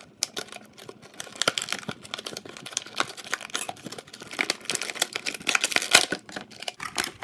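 Stiff clear plastic blister packaging of a toy crinkling and crackling as hands pry and twist it open: a dense, irregular run of sharp crackles, busiest in the second half.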